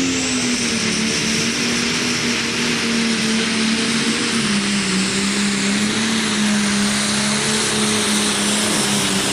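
Pulling tractor's engine running flat out during a pull: a loud, steady drone over a heavy rushing noise. Its pitch sags slightly about halfway through.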